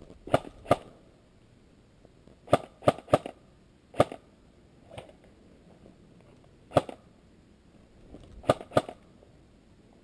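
Airsoft gun fired in single shots: about nine sharp pops in short groups of two or three, with pauses of a second or more between groups.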